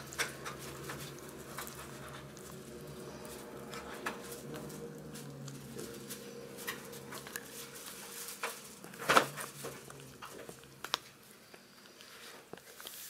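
Small yorkie-schnauzer mix dog gnawing a chew toy close up: scattered wet clicks and crunches, the loudest about nine seconds in.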